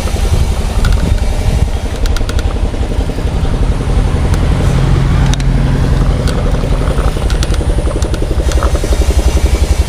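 Wind rumbling and buffeting on the microphone of a moving bicycle, with scattered clicks and rattles from the ride.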